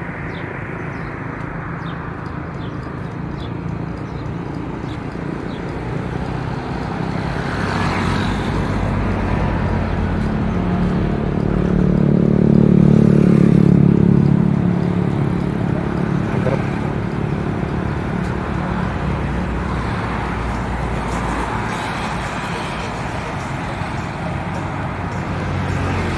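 Road traffic on a main road: a steady rumble of passing vehicles, with one engine growing louder as it passes close, loudest about halfway through, then fading.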